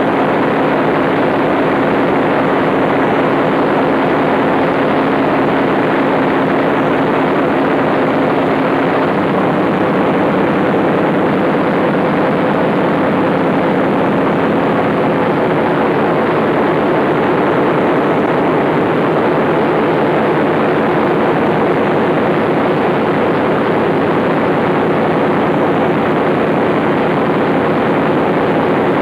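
Large Fairbanks Morse stationary diesel engine driving a power-plant generator, running loud and steady at constant speed.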